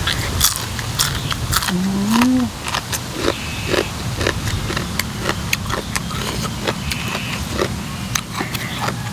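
Close-up wet chewing and lip-smacking on a mouthful of papaya salad with pickled seafood, many quick smacks and crunches one after another, with a short rising "mm" hum about two seconds in.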